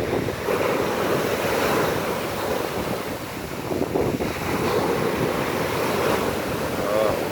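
Rough storm surf breaking on the shore, swelling and falling back twice, with wind buffeting the microphone.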